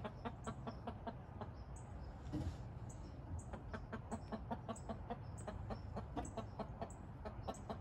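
Rhode Island Red hen clucking, a steady run of short clucks a few times a second.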